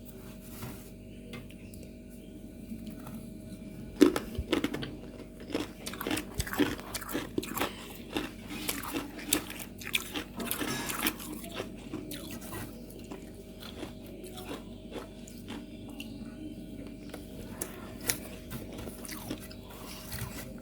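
Freezer frost being bitten and chewed: crisp crunches start about four seconds in, come thickest around ten seconds, then thin out.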